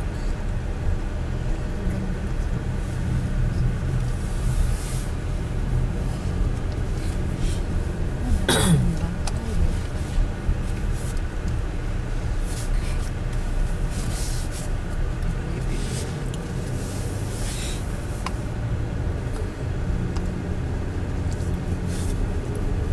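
Car cabin road noise: the engine and tyres rumble steadily while driving over a rough, patched asphalt road, with a few light clicks. About eight and a half seconds in, a brief falling tone sweeps from high to low.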